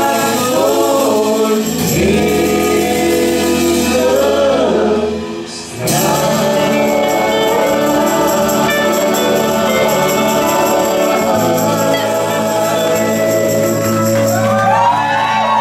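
Live gospel music: several voices singing in harmony with a small band of electric guitars and drums. The music drops briefly about five seconds in, then the voices hold one long note over the band.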